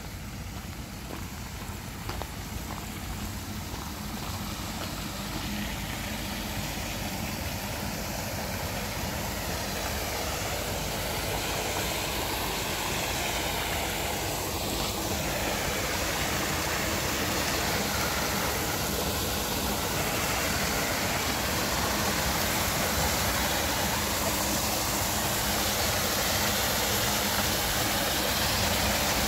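Murky wastewater from an open sewage ditch rushing and splashing down into a grated inlet shaft choked with rags and toilet paper. A steady rushing that grows louder throughout.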